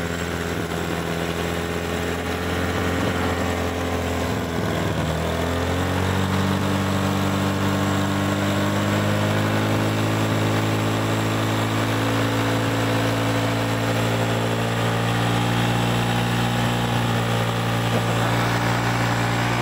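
Honda Vario scooter's single-cylinder four-stroke engine running at a held fast idle while carbon-cleaner tune-up liquid is sprayed into its air intake. The engine speed wavers briefly, steps up about six seconds in and again a few seconds later, then holds steady.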